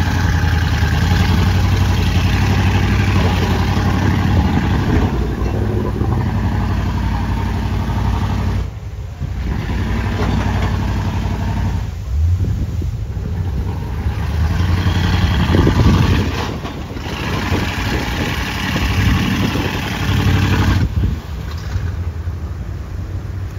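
Square-body Chevrolet pickup's engine revving in repeated surges, rising and falling, as the truck struggles through deep mud in a creek crossing and bogs down.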